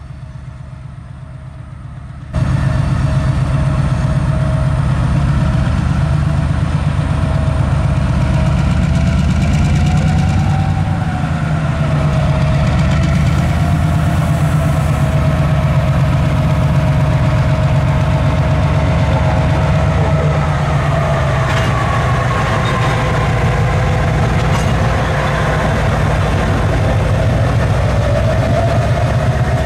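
EMD SW1500 switcher's diesel engine working as the locomotive pulls tank cars past: a deep steady rumble with a wavering whine above it. The sound jumps louder suddenly about two seconds in, and a few clicks come in later on.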